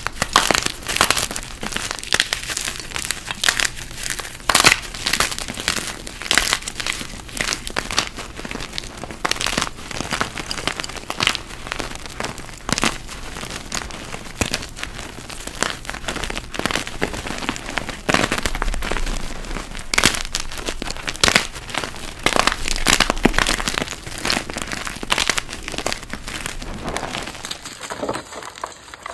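Blocks of dyed gym chalk being crushed, crunching and crumbling into powder in a dense, irregular run of sharp crunches that eases off near the end.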